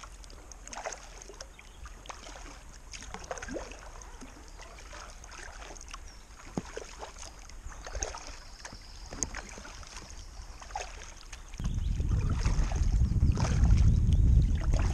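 Kayak paddle strokes from an inflatable kayak: soft splashes and water dripping off the blades. About three quarters of the way through, a loud low rumble of wind on the microphone comes in suddenly and drowns them out.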